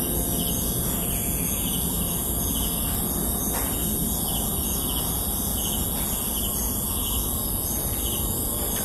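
Rural morning ambience: a steady high insect drone with small chirps repeating about twice a second, over a low rumble.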